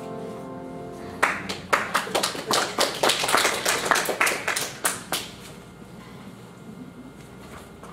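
Small congregation clapping, starting about a second in and lasting about four seconds, after the last piano chord fades away.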